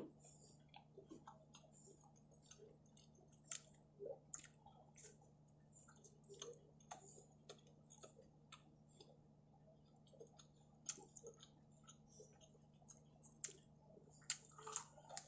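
Faint, close chewing of a pizza slice: scattered soft mouth clicks and small crunches over a low steady hum.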